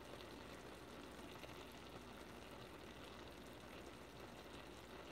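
Pinakbet vegetables sizzling faintly and steadily in a stainless steel pan.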